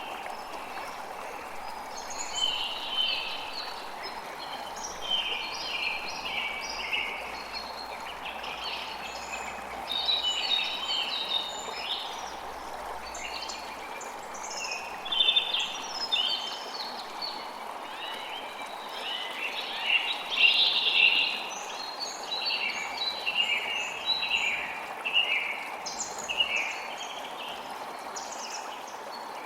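Many birds chirping and singing in short, varied phrases over a steady rush of running water.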